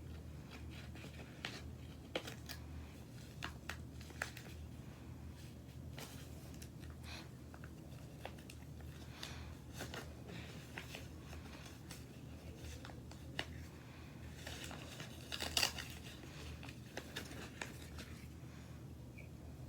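Scattered small clicks and rustling over a steady low hum, with a louder, denser burst of rasping noise about fifteen seconds in.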